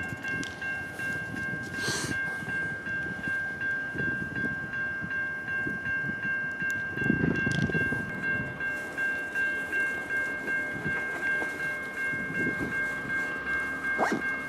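Railway level-crossing warning bell ringing continuously, a fast, even ringing on a steady high pitch, over a low, uneven rumble of machinery.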